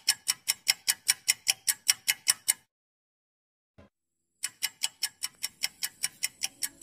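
Rapid, even ticking, about five sharp ticks a second. It stops for nearly two seconds in the middle, apart from one lone tick, then starts again.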